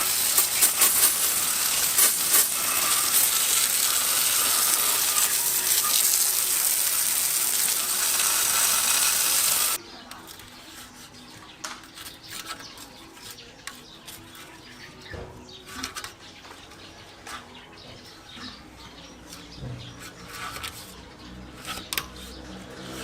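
Paint spraying onto a motorcycle frame: a loud, steady hiss with a few clicks, cutting off abruptly about ten seconds in. After it, only faint scattered clicks and knocks.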